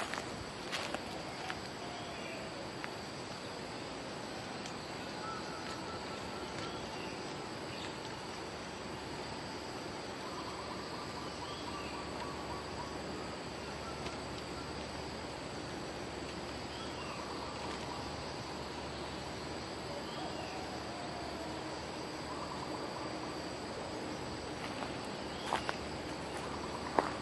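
Steady drone of forest insects, with faint short whistled bird calls and slurred chirps every few seconds, typical of bulbuls. A few sharp clicks come near the end.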